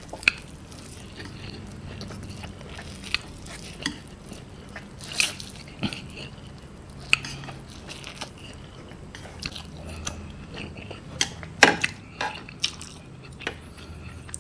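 Close-up eating sounds of a person chewing and slurping a mouthful of instant noodles, with irregular wet mouth clicks and smacks, a few of them louder.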